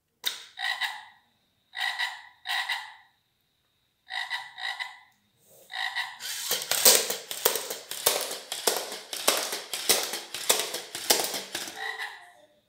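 Lego Mindstorms EV3 robot frog: a frog croak played through the brick's speaker, heard as pairs of short calls about half a second apart, a pair every second or two. From about six seconds in the croaks give way to a rapid clatter of its motors and plastic legs knocking on the wooden floor as it moves, and the paired croaks come back near the end.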